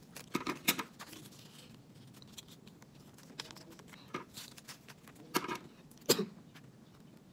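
Small pieces of paper being handled and shuffled on a table, making short scattered rustles and clicks. About six seconds in comes a single sharper snip as scissors cut through a piece of paper.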